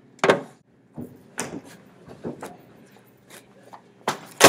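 A run of irregular knocks and thumps, about nine of them, the loudest and sharpest near the end.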